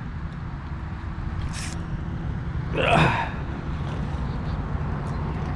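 An angler casting a lure: a short hiss as the line goes out about a second and a half in, then a breathy sigh from him about three seconds in, over a steady low rumble.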